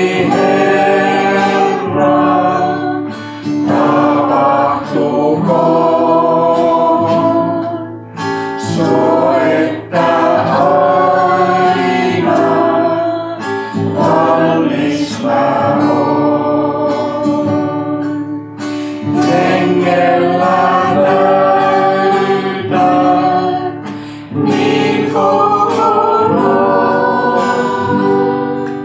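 A Christian song, voices singing to acoustic guitar accompaniment in phrases that pause briefly every few seconds.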